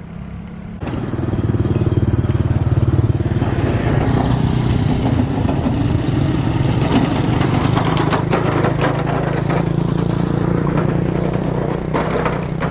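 Motorcycle engines running as several motorbikes ride over the level crossing close by, starting suddenly about a second in.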